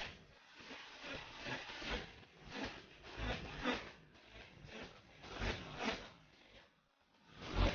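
Rustling, buffeting noise on the microphone in uneven surges, with several low thumps.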